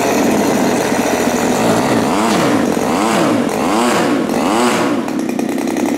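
Turnigy TP31-T 31cc twin-cylinder two-stroke gasoline engine running on a test stand during its first run, revved up and down about four times, a little under a second apart, between steady running.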